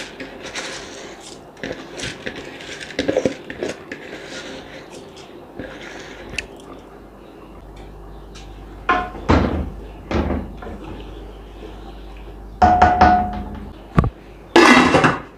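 Metal utensil scraping and knocking against an aluminium cooking pot as rice is stirred into boiling water, with a few sharp clanks in the last few seconds, one ringing briefly.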